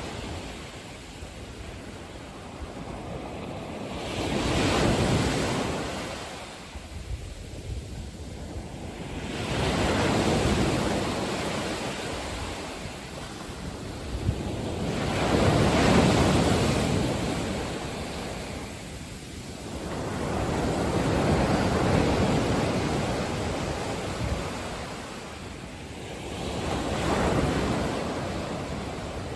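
Ocean waves surging and washing in, one swell about every five to six seconds.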